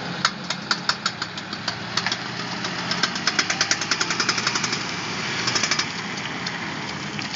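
Car engine running with a steady low hum under loud clicking and knocking, irregular at first and then fast and rattly for a few seconds in the middle.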